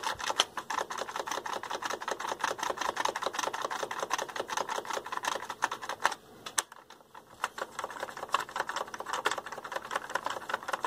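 Push-button input selector switches on a Denon PMA-770 amplifier pressed repeatedly and quickly, a rapid clatter of clicks with a brief lull about six seconds in. The switches are being worked to spread freshly sprayed contact cleaner through their dirty contacts.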